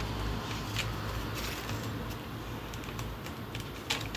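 Light handling noise of an album's packaging: scattered soft clicks and rustles, over a steady low hum.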